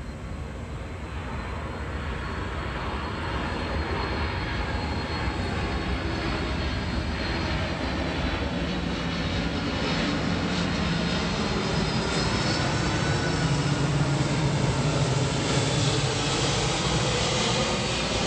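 Lockheed C-5 Galaxy's four turbofan engines passing low overhead on approach: a steady jet roar with a low drone and a high whine on top, growing steadily louder as the aircraft nears.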